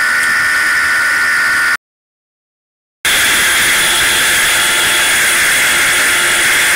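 Yamaha motorcycle ridden at over 130 km/h: loud wind rush on the microphone with a steady high engine whine. The sound cuts out completely for about a second, just under two seconds in, then returns unchanged.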